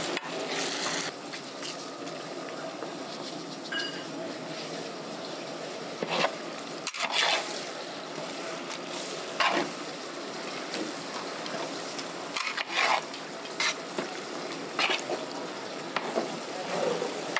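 Ladle stirring a large batch of fried vegetables into a spiced tomato gravy in a cooking pot: a steady sizzle, broken by irregular scraping strokes against the pot.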